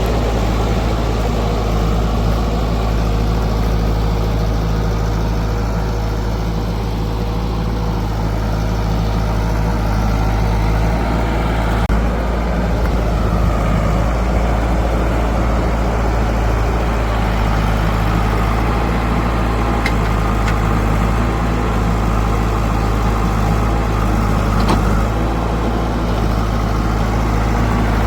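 Heavy diesel engine of farm and earthmoving machinery running steadily at a low, even speed, with a few faint clicks.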